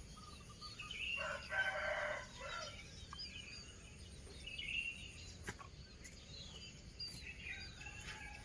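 A rooster crows once, about a second in, over scattered chirping of small birds.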